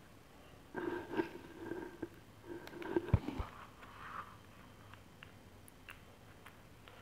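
Handling sounds from a Samsung Galaxy Tab 3 7.0 tablet as a SIM card is fitted into its side slot: light scrapes and two soft low knocks just after three seconds in. A low steady hum-like sound runs over the first few seconds.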